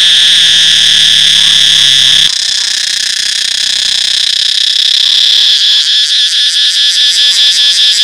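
Cicadas calling very loudly in a continuous, high-pitched buzz. About two seconds in the call drops slightly and changes, and from about five seconds in it pulses rapidly, roughly four beats a second.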